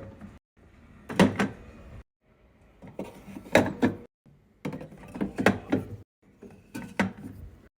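Repeated clunks and knocks as items are put into a coffee-table refrigerator's drawer, heard in short snippets that cut off abruptly.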